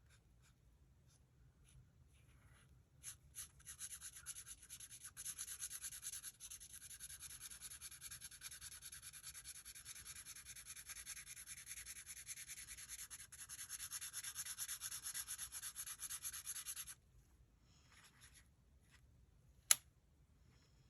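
Black marker scribbled rapidly back and forth over paper, colouring in a large area, for about fourteen seconds before stopping abruptly. A single sharp click follows a few seconds later.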